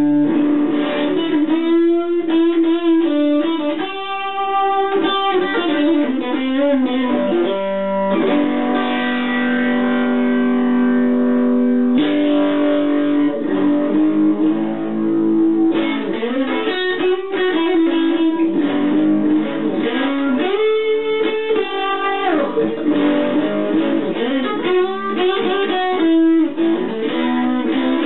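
B.C. Rich Mockingbird Pro electric guitar playing a blues lead: single-note runs with bent notes, and two long held notes around the middle.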